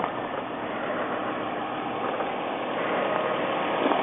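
A 2006 Mercedes-Benz C280's V6 engine idling steadily while it warms up, so that air can be bled from the freshly refilled cooling system after a water pump replacement.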